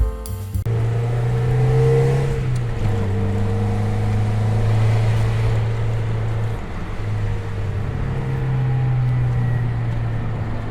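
1991 Mazda Miata's 1.6-litre four-cylinder engine running under load on a winding road. Its note rises and falls with the throttle, stepping down in pitch about three seconds in and easing off then picking up again around seven to eight seconds. Road and tyre noise runs underneath.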